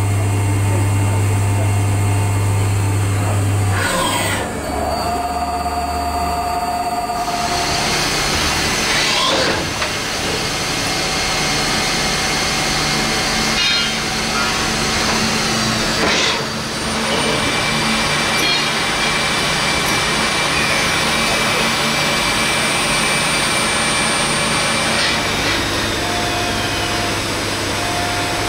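2008 Müga XP4 42 SM CNC lathe running: a steady motor hum gives way, a few seconds in, to a loud even whirring. A few brief whining sweeps pass through the whirring as the spindles and tool slides move, and the hum returns near the end.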